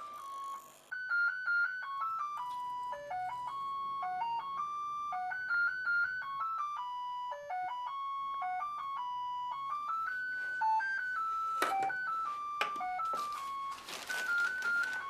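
Background music: a simple tune played in single clear high notes, one at a time. Two sharp clicks come about two-thirds of the way in, and a loud rustling noise comes in near the end.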